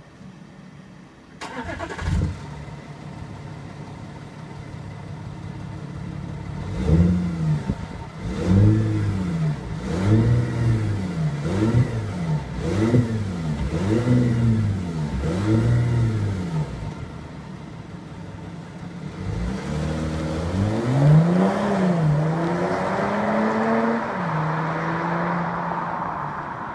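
Audi A7 3.0 TDI V6 turbodiesel through an aftermarket MG Motorsport exhaust. It fires up about a second and a half in and settles to an idle. It is then blipped about seven times in quick succession while standing, drops back to idle, and is revved again near the end.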